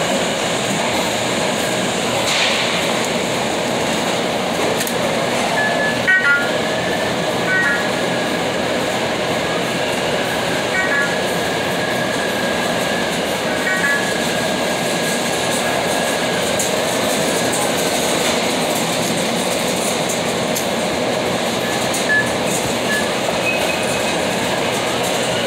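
Steady, loud mechanical rolling noise, with short high-pitched tones now and then, one of them held for several seconds near the middle, and a sharp knock about six seconds in.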